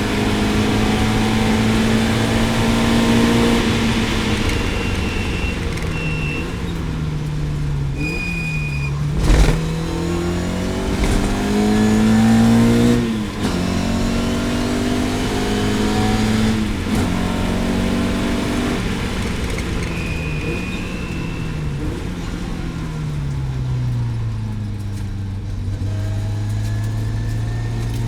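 Lotus Elan race car's engine running hard on track, its pitch climbing under acceleration and dropping back at each gear change, then falling away as it slows and picking up again near the end. A brief thump sounds about nine seconds in.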